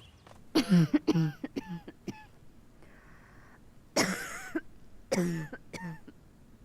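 A woman coughing in three bouts: a run of five or six coughs, then two shorter fits of a few coughs each.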